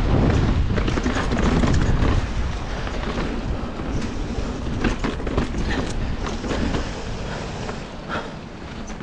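Wind buffeting the microphone on a descending mountain bike, with the tyres rolling over loose dirt and rocks and scattered clicks and rattles from the bike. The wind rumble is heaviest in the first two seconds.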